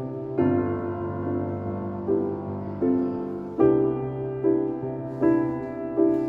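Soft, slow solo piano music, chords struck about once a second.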